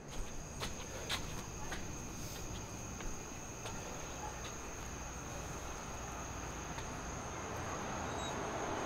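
Crickets trilling in a steady, unbroken high tone, with a few light clicks in the first few seconds.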